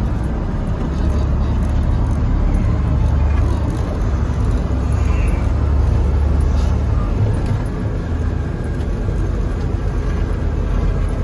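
Airport crash fire truck driving slowly, its diesel engine and cab giving a steady low rumble heard from inside the cab.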